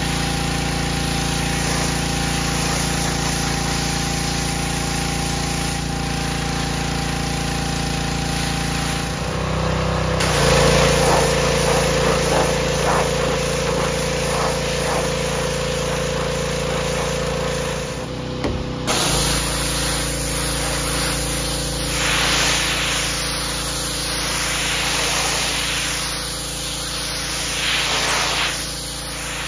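Pressure washer running steadily, its jet of water hissing against a boat's fiberglass hull and cabin top. The sound shifts abruptly twice as the spray moves to a different part of the boat.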